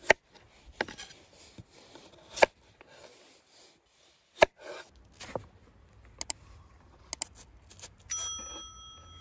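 A large knife cutting through raw potato onto a wooden cutting board, each cut ending in a sharp knock on the board, about five of them. Near the end a steel skewer being loaded with potato rings with a clear, bell-like tone that keeps sounding.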